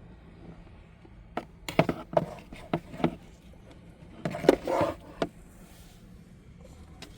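Hands working in a car's cabin air filter housing: a scatter of sharp plastic clicks and knocks with some rustling, in two clusters, one about two seconds in and one about four to five seconds in.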